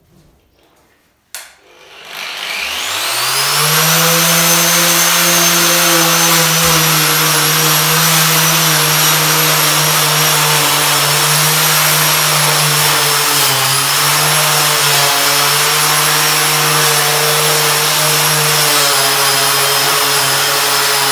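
Handheld electric angle grinder fitted with a sanding disc, switched on with a click about a second in and spinning up over a couple of seconds to a steady whine. It then sands bare wooden floorboards with a constant grinding hiss under the whine.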